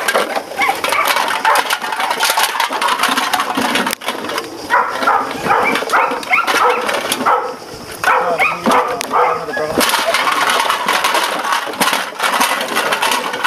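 Empty plastic bottles crackling and crunching as several puppies bite, shake and tug at them. Short high-pitched puppy cries come through around the middle.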